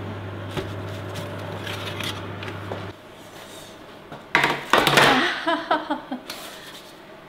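Steam oven's fan running with a steady low hum while a metal tray of banana-leaf parcels is slid out, with light knocks and scrapes. The hum cuts off suddenly about three seconds in. About a second later comes a loud, brief rush of noise, followed by short pitched, voice-like sounds that die away.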